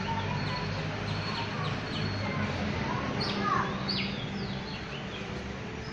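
Small songbirds chirping: short, quick notes that drop in pitch, coming in a cluster about three to four seconds in, over a steady low hum.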